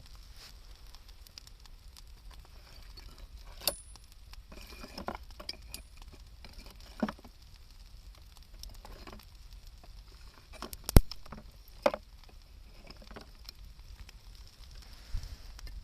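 Wood fire crackling, with scattered sharp pops and snaps at irregular intervals; the loudest snap comes about eleven seconds in.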